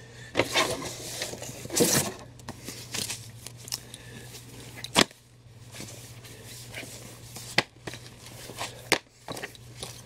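Comic books and cardboard being handled: paper and card rustling and sliding, with a few sharp knocks, the loudest about five seconds in.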